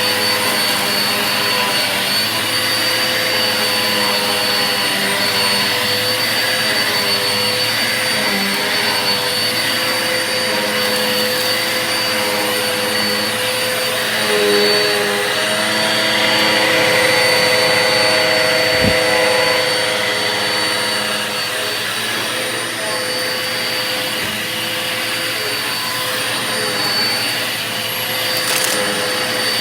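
Vacuum cleaner running steadily, a constant rush of air with a high motor whine, its tone wavering a little around the middle. A single short low thump about two-thirds of the way through.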